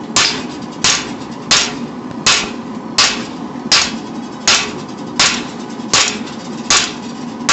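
Blacksmith's hammer striking hot steel on an anvil while forging a knife blank: about ten sharp, evenly paced blows, roughly one every 0.7 seconds.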